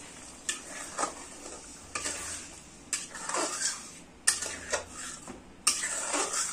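A metal ladle stirring chickpea curry in a metal kadai, scraping and clinking against the pan several times over a light sizzle.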